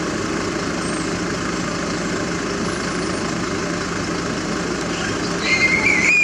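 Steady low hum of an idling engine. Near the end a high, thin, steady tone comes in over it.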